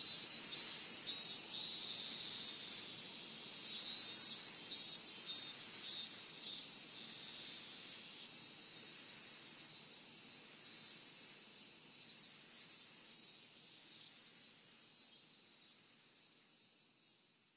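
Cicadas singing in chorus: a steady, high-pitched buzzing drone that slowly fades out.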